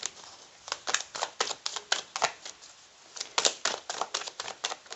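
A deck of tarot cards being shuffled by hand: a run of irregular, crisp card snaps and slaps, with a short lull about halfway through.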